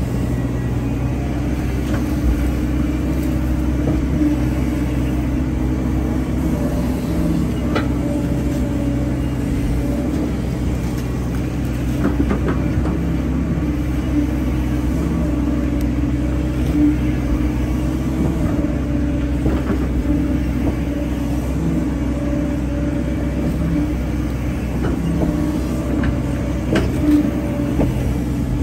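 Hyundai hydraulic excavator's diesel engine running steadily, with a few short knocks scattered through.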